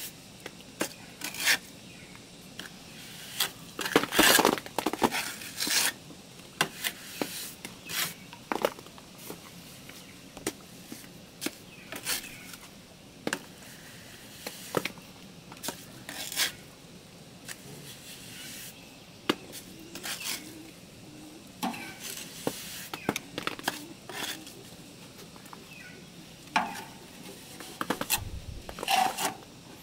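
Mason's trowel scraping and tapping as wet cement mortar is spread and flicked onto a concrete block wall: irregular scrapes and clicks, with a burst of denser scraping about four seconds in.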